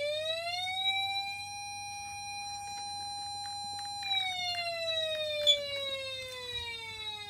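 Patlite SAP500BZ electronic siren amplifier sounding a wail: the tone rises quickly, holds steady for a few seconds, then slowly falls. A sharp click sounds about five and a half seconds in.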